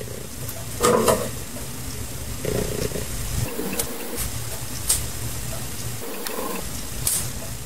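Tearing and rustling of a thin cardboard plant container being pulled apart by hand, with a few sharp knocks and a low steady hum underneath.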